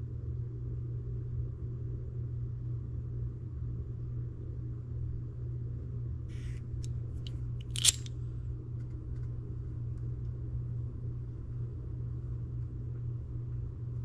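Steady low background hum, broken about eight seconds in by a single sharp click.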